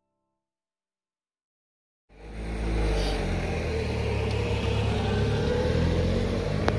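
Silence, then about two seconds in a loud, steady, low engine rumble cuts in suddenly and keeps going.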